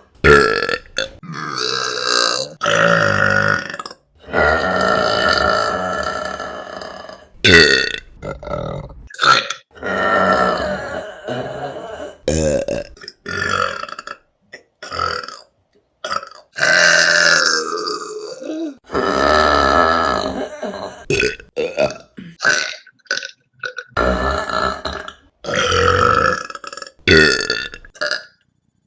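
A string of loud burps from several women, one clip cut straight after another: some long, drawn-out belches lasting a couple of seconds, others short and quick in a rapid run near the end.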